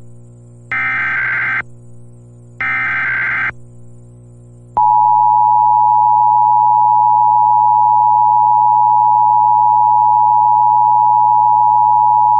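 Emergency Alert System test tones broadcast on radio: the last two of the three SAME digital header bursts, each a buzzing data squawk under a second long and about a second apart, then, about five seconds in, the EAS attention signal, a steady, loud two-tone 853 and 960 Hz tone that holds to the end.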